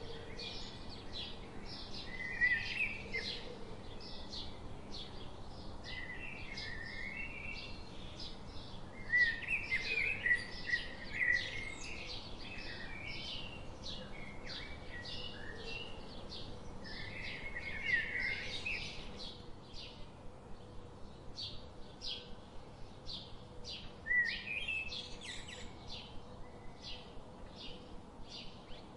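Small birds chirping and twittering, with warbled phrases here and there and, in the second half, one bird repeating short chirps about twice a second.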